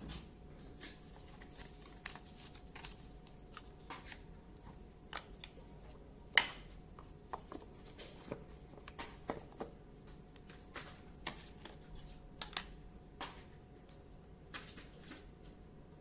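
Handling of a paper manual and a cardboard product box: scattered rustles and light knocks, with one sharper click about six seconds in.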